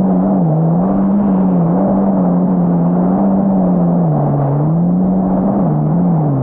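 Yamaha GP1800R SVHO jet ski's supercharged four-cylinder engine running hard under way. The engine note dips briefly several times and recovers, most deeply about four seconds in, over a steady rushing noise.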